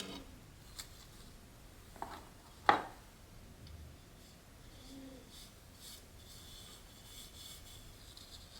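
Quiet hand-handling sounds during houseplant repotting: a few light taps and one sharper knock about a third of the way in, then soft rustling and scraping near the end.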